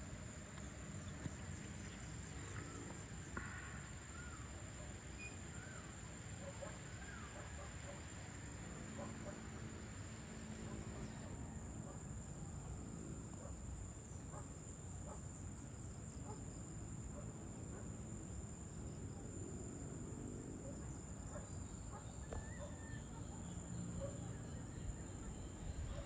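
Evening outdoor ambience: a steady high-pitched drone of insects, with scattered short bird chirps and a low steady rumble underneath.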